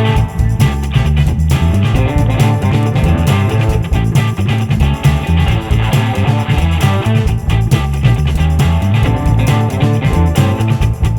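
Background rock music with electric guitar and bass over a steady beat.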